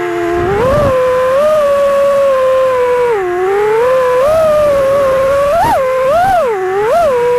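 A 5-inch FPV freestyle quadcopter's four 2306 1750kv brushless motors on 6S, spinning GemFan 51433 props, heard from its own onboard action camera. They give a steady, high whine that dips about three seconds in, then rises and falls in several quick throttle punches near the end.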